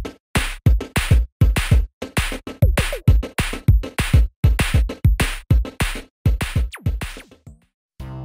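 Electronic background music built on a drum machine beat, with heavy kick drums and sharp hits in a steady, driving rhythm. The beat stops near the end, and softer keyboard music begins right after.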